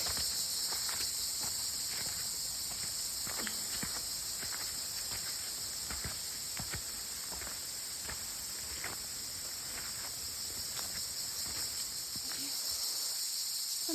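Steady high-pitched drone of a tropical forest insect chorus, with the irregular crunch and scuff of footsteps on a trail.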